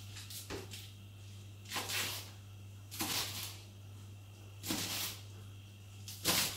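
Kitchen knife slicing through a bunch of green leaves on a wooden chopping board: five short swishing strokes spaced about a second and a half apart, over a low steady hum.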